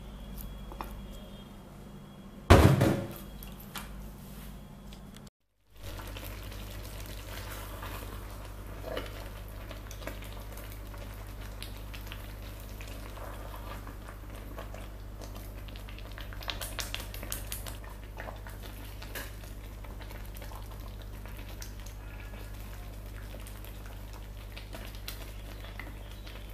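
A pot of orbiata (jute-leaf sauce) simmering, with faint scattered bubbling pops over a steady low hum. One loud knock of crockery comes about two and a half seconds in.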